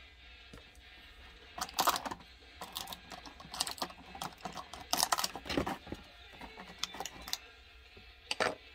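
Light clicks and rattles of small plastic parts being handled in a clear plastic packaging tray, in irregular clusters that begin about a second and a half in, with one last click near the end. Faint background music.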